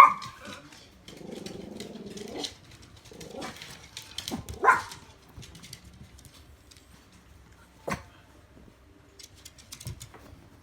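A dog barking: one sharp bark at the start and another about four and a half seconds in, with a steady pitched sound between them. A single sharp knock comes near eight seconds.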